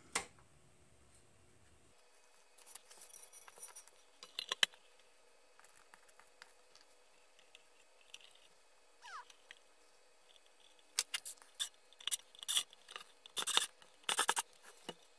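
Metal tube-tester panel being fitted into its steel case and screwed down: scattered clicks, knocks and scrapes, a short falling squeak about nine seconds in, and tight clusters of clicks near the end as the screws are driven.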